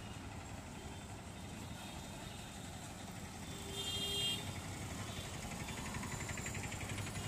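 Street traffic of auto-rickshaws and buses with a steady low rumble; a vehicle horn honks briefly about four seconds in, and a fast trilling tone follows near the end.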